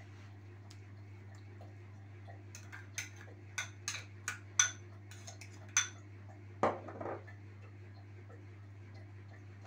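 Metal spoon clinking against a glass bowl while scooping tomato sauce: about half a dozen sharp, ringing clinks between three and six seconds in, then a louder short scrape. A steady low hum lies underneath.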